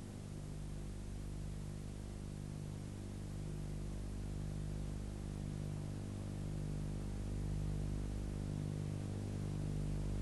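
A steady low hum made of several held tones, one of them swelling about once a second, over a faint even hiss, slowly growing louder.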